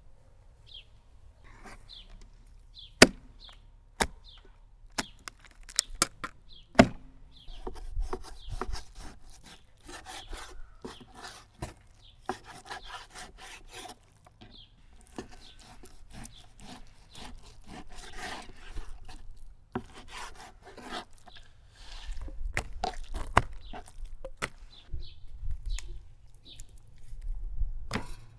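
Close-up handling on a wooden work table: a run of sharp knocks and clacks, then continuous rubbing and scraping, with heavier dull thuds over the last few seconds as whole raw chickens are handled.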